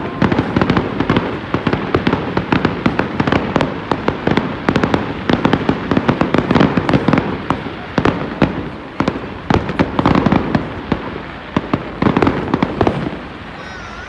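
A fireworks display: a rapid barrage of shell bursts and crackling, with many sharp bangs a second over a continuous rumble, easing off somewhat near the end.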